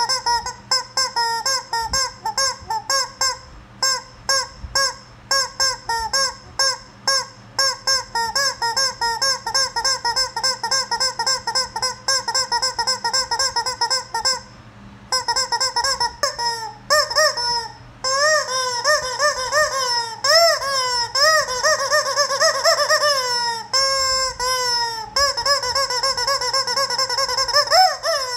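Rubber chicken squeeze toy squawking as it is squeezed over and over: quick short honks several a second at first, then, after a brief pause about halfway through, longer drawn-out squawks that bend up and down in pitch.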